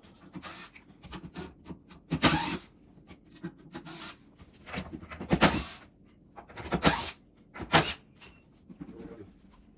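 Irregular knocks, clunks and scrapes of an old wooden kitchen cabinet being taken down, with louder bangs about two, five, seven and eight seconds in.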